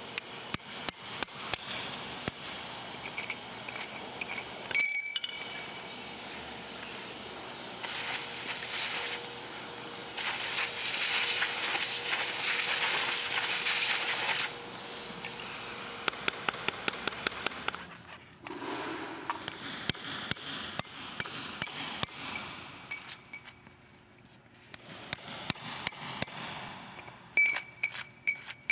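Hammer driving a masonry chisel into concrete to chip out a spalled joint edge: rapid strikes that ring. In the middle a shop vacuum runs steadily for about seven seconds, sucking up the broken concrete, then the chiselling starts again in bursts.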